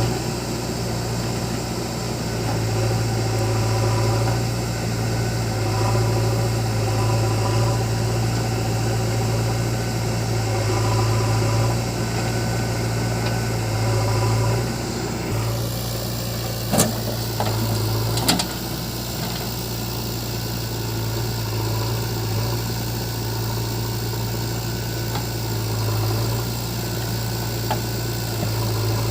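Heavy diesel engine running steadily, its low hum swelling and easing every few seconds. The sound changes abruptly about fifteen seconds in, and two sharp knocks follow about a second and a half apart.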